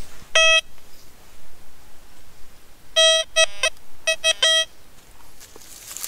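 Metal detector giving its audio signal as the search coil sweeps the ground: one short beep just after the start, then a quick run of about half a dozen beeps of the same pitch about three seconds in, one of them fluttering. The beeps are the detector's response to something under the coil.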